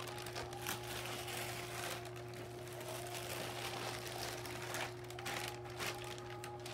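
Plastic packaging bag and bubble wrap crinkling and rustling as they are handled and pulled out of a cardboard box, over a steady low hum.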